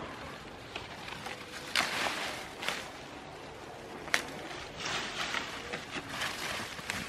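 Goats browsing on leafy brush: leaves rustling and being torn, in uneven bursts, with a few sharp snaps.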